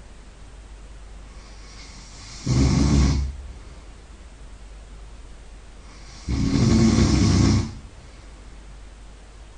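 A sleeping person snoring really loud: two snores about four seconds apart, the second longer at about a second and a half, each led in by a faint breath.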